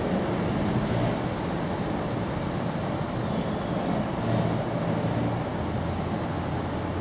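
Steady outdoor background noise: a low, fluctuating rumble under an even hiss.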